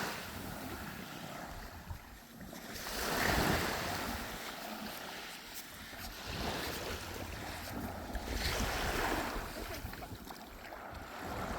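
Sea waves washing onto the beach, swelling twice: about three seconds in and again about eight and a half seconds in. Wind rumbles on the microphone.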